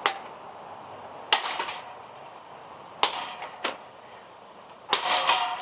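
A ceiling fan being struck: about five sharp hits spread over the few seconds, the last followed by a brief ringing rattle.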